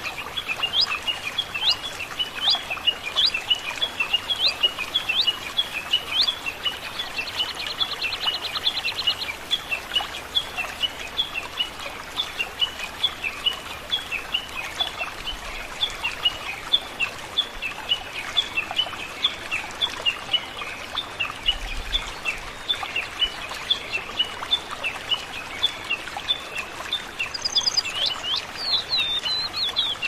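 Small birds chirping in a rapid, continuous chatter over a steady wash of flowing water. About seven seconds in, a buzzy trill lasts about two seconds. Near the end a different, higher bird call joins.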